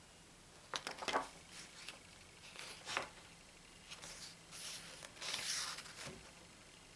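Pages of a photobook being turned and handled: a few quick paper clicks and rustles about a second in and again near three seconds, then a longer paper rustle around five seconds in.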